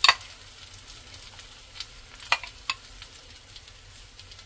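Beaten egg with chopped vegetables sizzling as it is ladled into a hot oiled frying pan beside a rolled omelette. A sharp utensil clink right at the start and two lighter clicks a little past halfway, from the metal ladle.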